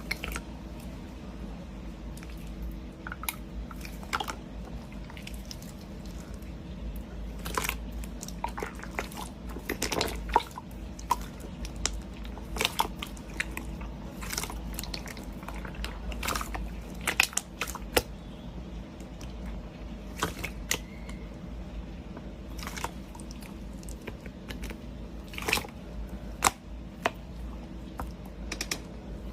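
Slime being squeezed and worked by hand, giving irregular crackling and popping clicks over a faint steady hum.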